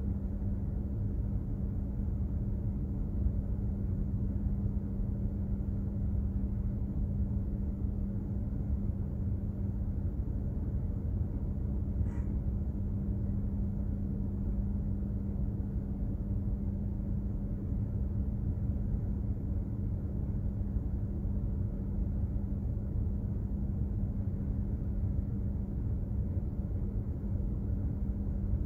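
Container ship under way: a steady low rumble from its machinery with a constant droning hum. There is one faint tick about twelve seconds in.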